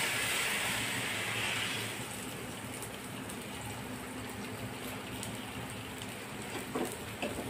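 Thalipeeth dough sizzling on a hot oiled tawa. The sizzle is loudest at first and settles to a steady, quieter sizzle after about two seconds.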